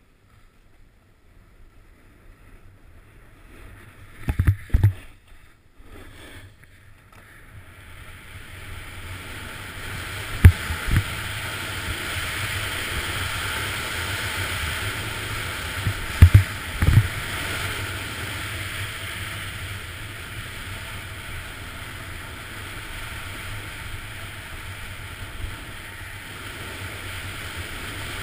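Rushing noise of a snowboard run heard on an action camera: wind over the camera and the board sliding on packed snow, faint at first and then growing much louder from about eight seconds in as the rider picks up speed. Several short, heavy low thumps come in pairs, at about four, ten and sixteen seconds in.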